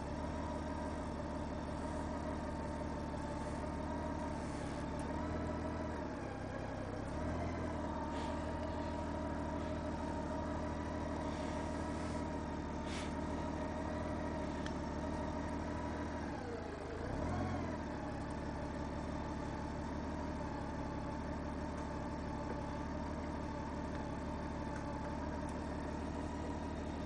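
Honda Goldwing F6B's flat-six engine running steadily, its pitch dipping and recovering twice, about seven and seventeen seconds in.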